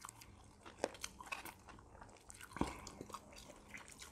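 Close-miked eating of sushi hand rolls: quiet, scattered wet mouth clicks and chewing, with a couple of louder bites about a second in and just past halfway.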